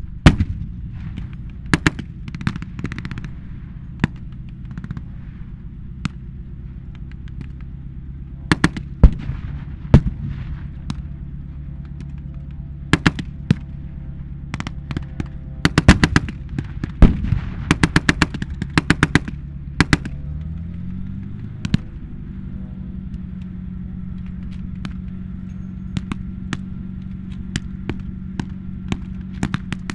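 Reenactment battle gunfire with blank rounds: scattered single shots and rapid machine-gun bursts, thickest about halfway through. Under it runs a steady low engine drone that rises in pitch about twenty seconds in and then holds.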